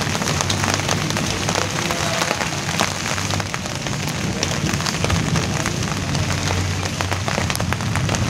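Rain falling on broad leaves: a steady hiss dotted with many separate drop taps, over a low rumble.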